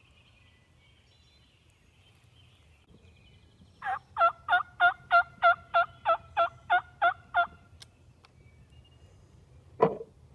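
Wild turkey gobbler gobbling: a loud string of about a dozen evenly spaced rattling notes lasting a few seconds, then a single short call that drops in pitch near the end.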